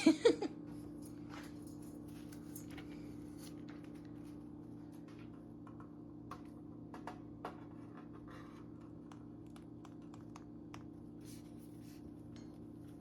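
Pet parrot fiddling at something, making small scattered clicks and scratches with its beak and claws over a steady low hum. A short loud call comes right at the start.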